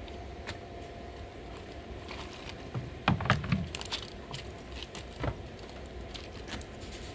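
Large pleated pool filter cartridges being handled and lifted out of the filter tank, bumping and scraping against the tank and each other. A cluster of knocks comes about three seconds in, over a steady low hum.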